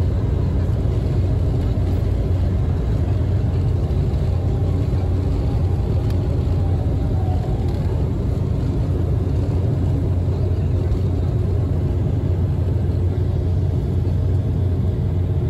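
Embraer E195's twin CF34 turbofan engines at takeoff power and the rumble of the wheels on the runway, heard inside the cabin over the wing: a steady, loud low roar through the takeoff roll.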